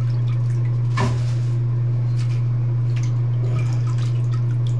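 Water dripping and splashing in a toilet bowl as wet wipes are lifted out of it, with one sharper sound about a second in, over a steady low hum.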